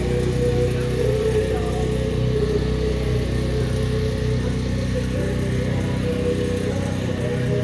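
A vehicle engine running steadily.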